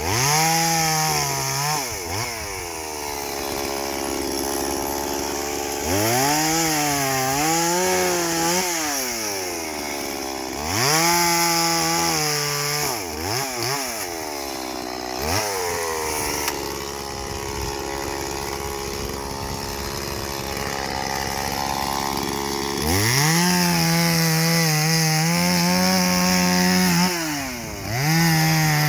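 Stihl two-stroke chainsaw revved to full throttle in about five bursts, its pitch sagging and wavering under load as it cuts wood, then dropping back to idle between cuts, with a longer stretch at idle midway through.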